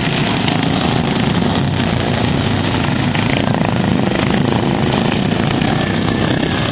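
Racing lawn mower engines running hard at full throttle, a loud, steady mechanical drone with no let-up.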